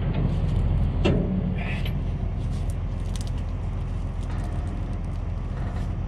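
Farm tractor engine idling steadily, with a single knock about a second in from the gravity wagon's tongue being handled for hitching.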